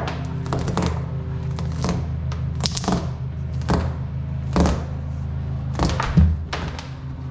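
Background music with a steady low bass line and sharp percussive hits.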